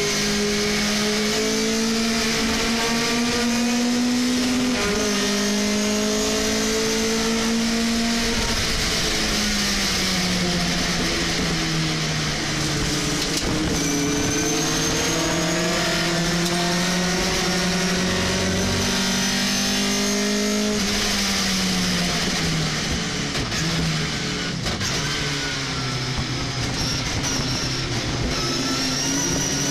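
Race pickup truck's engine heard from inside the cab at racing speed, the revs climbing steadily through each gear and dropping sharply at gear changes and lifts off the throttle, several times over.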